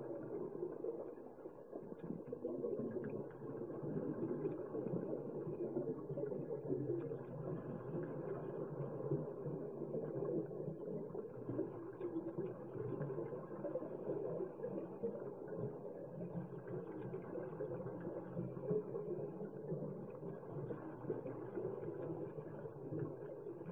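Underwater ambient noise picked up by a submerged camera: a steady, muffled low rumble of water with faint scattered ticks.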